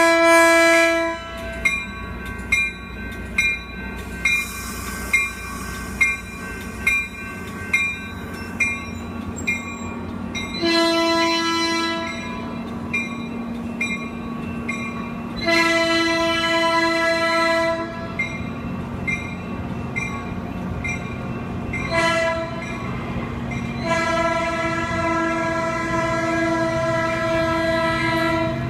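Caltrain commuter train's horn: one blast at the start, then two long blasts, a short one and a long one, the grade-crossing warning pattern, over the rumble of the passing bilevel cars. During the first ten seconds a bell rings steadily about one and a half times a second.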